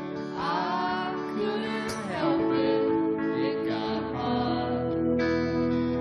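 Live band music: a strummed acoustic guitar with a voice singing over it, the sung line sliding up and down in pitch.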